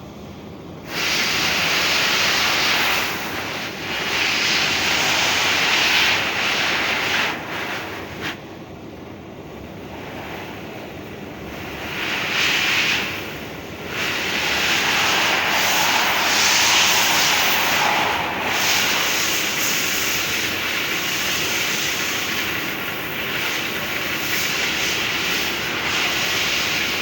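Depureco ATEX BL45 industrial vacuum cleaner running, a loud steady rushing of suction air that swells and drops several times, with two deeper dips where the hiss thins out.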